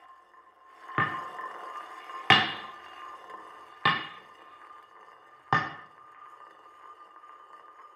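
Experimental electronic soundtrack: a steady high drone with four sharp struck hits, each ringing out briefly, spaced about a second and a half apart. The second hit is the loudest.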